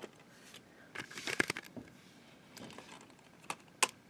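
Plastic clicking and rattling of a DVD being worked off the centre hub of a stacked-disc case: a quick cluster of clicks about a second in, then two sharp clicks near the end.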